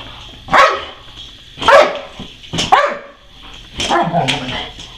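Boxer dog barking in play at its ball toy: about five barks roughly a second apart, the last one longer and drawn out.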